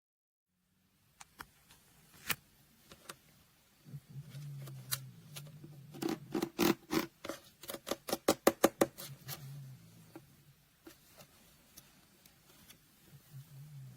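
Scattered clicks from the controls of a sunrise alarm clock being worked, with a quick run of about four or five clicks a second in the middle. A faint low hum comes and goes between the clicks.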